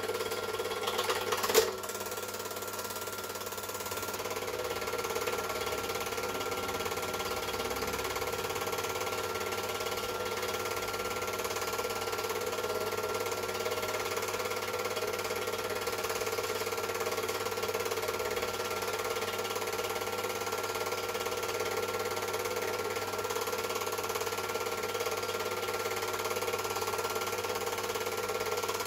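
Super 8 film projector running steadily, a whirring mechanical hum with a fixed high tone, with one sharp click about a second and a half in.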